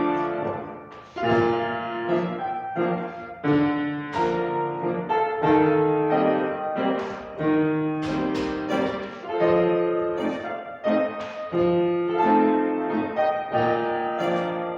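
Piano playing a classical-style accompaniment for a grand battement exercise at the ballet barre, with a new accented chord or phrase about once a second.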